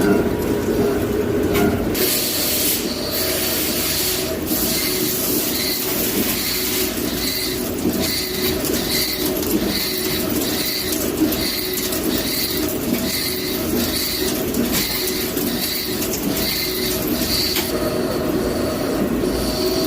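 CNC lathe at work: a steady machine hum, with a hiss coming in about two seconds in and a high-pitched tone pulsing about twice a second until near the end.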